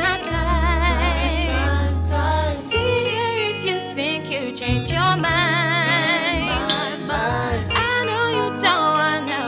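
Live afro-soul band music: sung vocal runs with a wide vibrato, no clear words, over sustained deep bass notes and keys.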